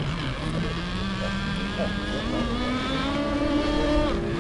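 Model offshore powerboat engine running at high revs, a steady whine that rises gradually in pitch.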